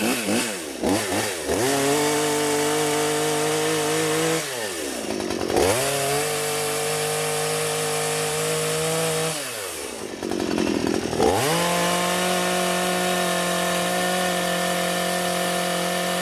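Full Boar 53cc two-stroke petrol chainsaw run up to full throttle three times, each held for a few seconds with a steady high note, dropping back toward idle in between, while cutting through wood.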